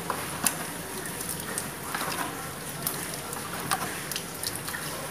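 Hands squeezing and kneading a wet slurry of cow dung and cow urine in a plastic bucket, making irregular wet squelches and small clicks.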